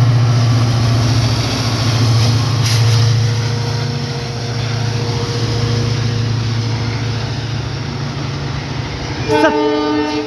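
Freight train of covered wagons rolling past behind a WDG-4D diesel locomotive: a steady low diesel drone that eases after a few seconds under the continuous rumble and clatter of wagon wheels on the rails. A short pitched tone sounds near the end.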